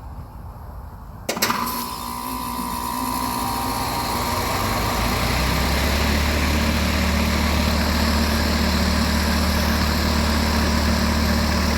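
Air-conditioning unit starting up: a sharp click about a second in, then a whoosh and hum that build over a few seconds and settle into a steady run with a low hum.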